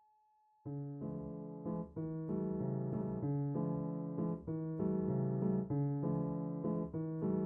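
Piano music starting just under a second in, with repeated chords struck in a steady rhythm.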